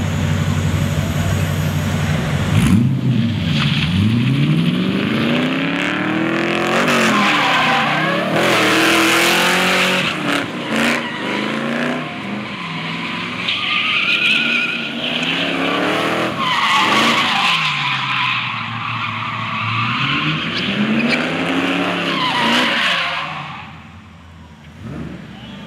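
Car engine revving up and down again and again during a tyre burnout, with the rear tyres screeching as they spin on the asphalt. A steady engine drone for the first couple of seconds gives way to repeated rising and falling revs, and the sound fades away about 23 seconds in.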